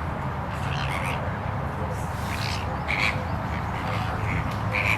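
Short animal calls repeating about once a second over a steady low hum.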